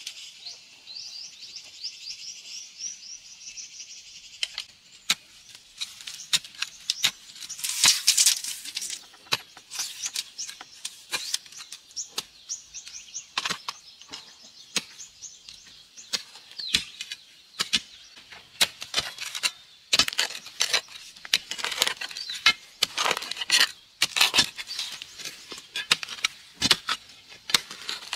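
Long-handled digging spades jabbed repeatedly into soil, giving irregular thuds, chops and scrapes of the blades into dirt and stones as holes are dug. A high, rapid chirping runs in the background for the first few seconds.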